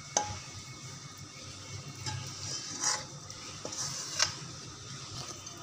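A metal spoon scraping and knocking against a cooking pot as leftover masala gravy is spooned over the rice, with three sharp clinks: just after the start, about three seconds in, and about four seconds in. A low steady hum runs underneath.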